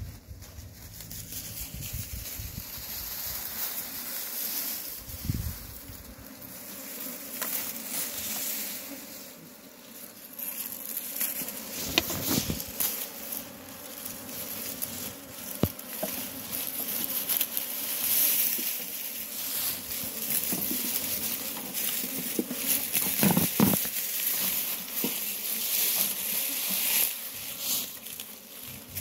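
Bees buzzing around a colony clustered on a fallen log, mixed with rustling of dry grass and leaves and a few knocks.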